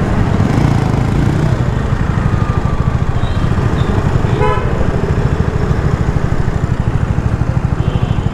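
Steady low rumble of a vehicle driving through city traffic, with a short horn toot about four and a half seconds in.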